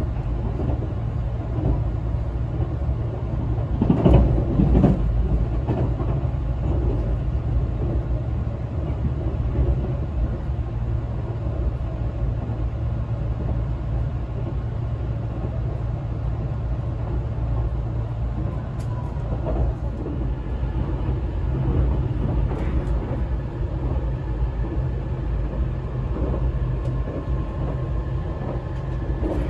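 Tobu 200 series limited express running at speed, heard inside a passenger car: a steady rumble of wheels on rail and its DC traction motors under field-addition excitation control, with a louder stretch about four seconds in.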